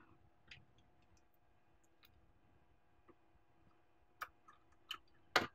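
A few light, scattered clicks and taps as a sheet-metal PCI bracket is fitted onto a bare graphics card's circuit board, the loudest click near the end.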